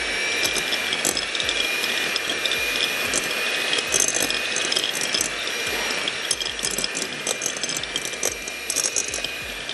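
Electric mixer running steadily, beating butter in a bowl: a steady high motor whine over a churning hiss, with irregular sharp clicks.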